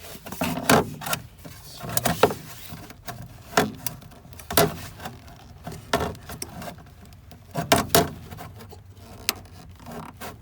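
A plastic electrical connector on a fuel tank unit being pushed down and wiggled back and forth to free it: irregular plastic clicks and knocks with rubbing, the louder knocks about a second or two apart.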